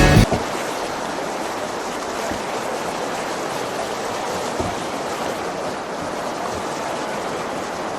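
Rushing river water, a steady churning rush.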